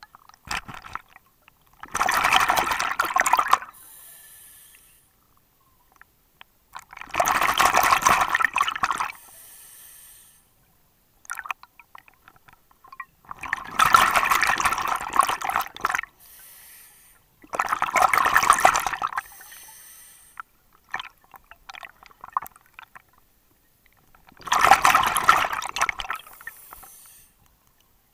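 Scuba diver breathing through a regulator underwater: a loud, bubbling rush of exhaled air about every five seconds, five times, with a fainter hiss trailing after some of them.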